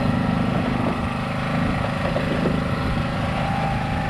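Small engine running steadily at an even idle, a constant low drone.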